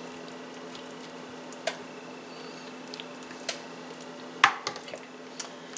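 A utensil knocking and scraping against a casserole dish as sugared peach pie filling is mixed and spread: a few sharp taps, the loudest about four and a half seconds in, over a steady hum.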